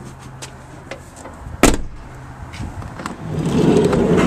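Volkswagen T5 van door: one sharp latch clunk about one and a half seconds in, then rustling and scuffing as someone climbs out of the cab.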